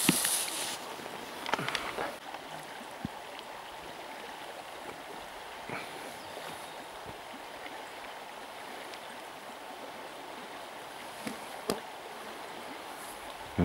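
Small river flowing steadily over its stones. A plastic bag rustles in the first second, and a few faint clicks punctuate the water noise.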